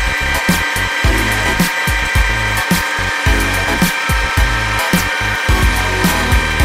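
Metal lathe drilling into the end of a spinning metal bar with a twist drill held in the tailstock chuck: a steady high-pitched cutting whine. Background music with a steady beat plays throughout.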